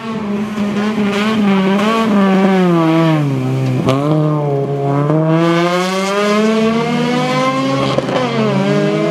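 Honda Civic Type-R rally car's four-cylinder engine revving hard through a corner. The pitch sinks for the first few seconds, there is a sharp pop just before four seconds in, then the revs climb steadily until a second pop and drop near eight seconds.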